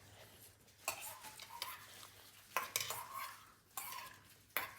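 Eating utensils clinking and scraping against bowls and plates during a meal: several sharp separate clinks, unevenly spaced.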